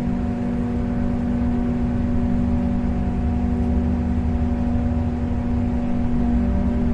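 A ship's engine running steadily while docking, a low rumble under a constant droning hum.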